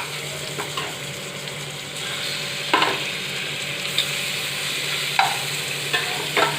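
Marinated boneless chicken pieces sizzling in shallow vegetable oil in a hot pan: a steady frying hiss, with about four short knocks spread through.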